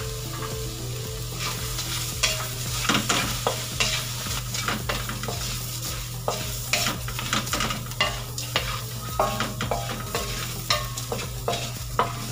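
Whole shrimp frying in a metal wok, sizzling, while a wooden spatula stirs and scrapes them around the pan. From about two seconds in come frequent sharp clicks and taps of the spatula against the wok.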